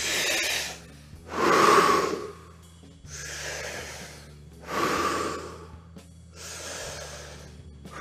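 A group of people taking deep breaths together in unison, slow in-breaths alternating with louder out-breaths about every three seconds.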